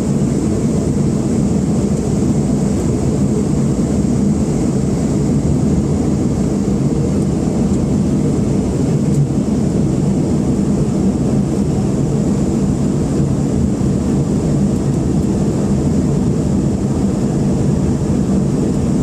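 Steady airliner cabin noise: engine drone and rushing air heard from inside the passenger cabin, with a thin, faint high whine over it.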